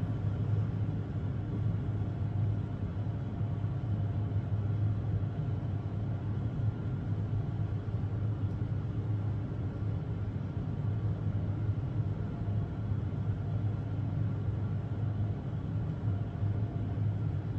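Steady low background rumble and hum, unchanging throughout, with no distinct events.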